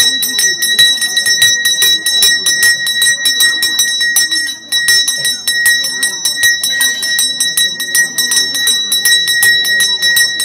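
Temple bell rung rapidly and without a break, several strikes a second, with a steady high ring.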